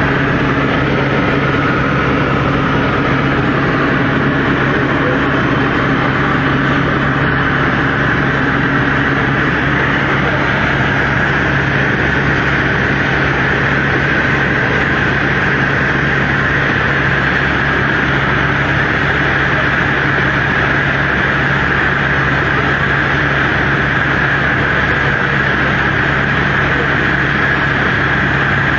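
Helicopter in flight heard from inside the cabin: the engine and rotor make a loud, steady drone with a constant low hum and a higher whine above it.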